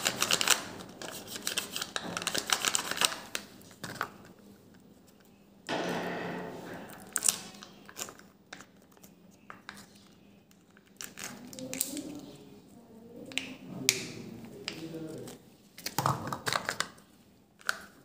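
Plastic egg-shaped candy capsule handled and opened, with sharp plastic clicks and taps, and the foil seal on its chocolate cream cup crinkling and tearing as it is peeled back.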